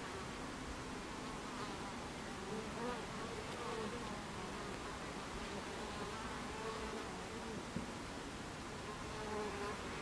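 Buckfast honeybees buzzing at the hive entrance, a wavering hum that swells as single bees fly close past. One short click about eight seconds in.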